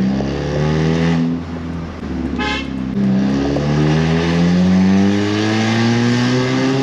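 Hyundai car's engine and exhaust pulling under acceleration, heard from inside the cabin: the note rises, falls back a little after a second in, then climbs steadily again. A short beep sounds about two and a half seconds in.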